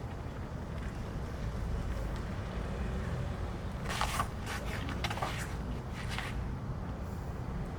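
Steady low rumble, with a quick run of short scrapes and scuffs between about four and six seconds in.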